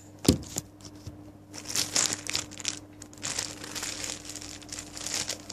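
A single sharp knock, then a clear plastic Ziploc bag crinkling and rustling in irregular bursts as it is handled.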